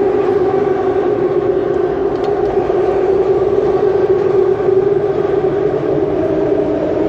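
Boat engine running at a steady low speed, a continuous droning hum whose pitch shifts slightly near the end.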